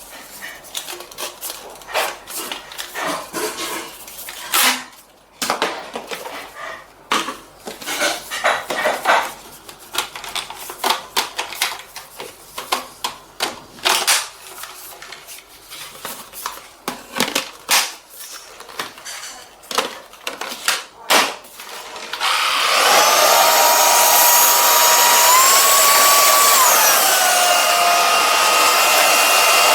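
Clicks and knocks of plastic parts being handled. Then, about 22 seconds in, a cordless stick vacuum with a brushless motor is switched on: a loud, steady rushing whine that steps up in pitch twice and then drops.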